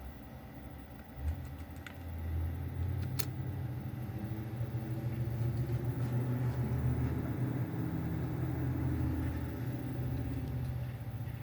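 Western Digital Black desktop hard drives reading files, making a raspy, grinding low rumble with a rapid grainy texture that swells about two seconds in, with a few small ticks and one sharp click from the drive mechanism. The owner is unsure whether this noise is normal.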